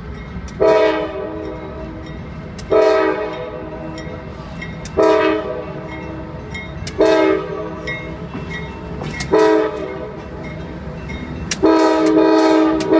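CSX diesel locomotive's horn sounding a chord in five short blasts about two seconds apart, then a longer blast near the end, over the low rumble of the approaching locomotive.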